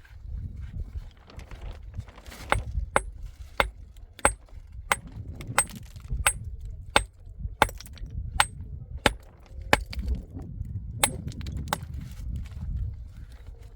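Repeated sharp blows of a struck tool, about fourteen strikes at a steady pace of roughly one every two-thirds of a second. Each blow carries a brief high metallic ring, and there is a short pause near the end. A low rumble runs underneath.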